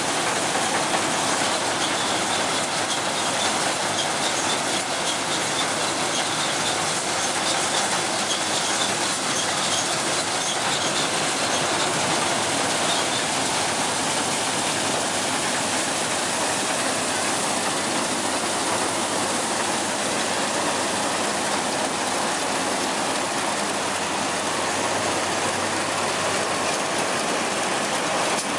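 NS 929 4x4 combine harvester running close by as it cuts standing crop: a steady, loud mechanical noise of engine, reel and cutter bar. A faint high whine comes and goes in the first half.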